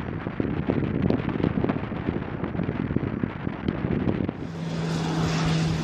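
Gusty wind rumbling and crackling on the microphone over the distant drone of an E-2 Hawkeye's twin turboprops as it climbs away. About four seconds in, this gives way to a steadier hiss with one steady low hum.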